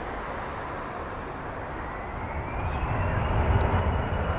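Bombardier CRJ-1000's twin rear-mounted General Electric CF34 turbofans spooling up for take-off. A whine rises in pitch about two seconds in and then holds, while a low rumble grows louder.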